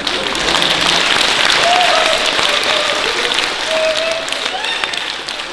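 Theatre audience applauding, loudest in the first half and slowly easing off toward the end.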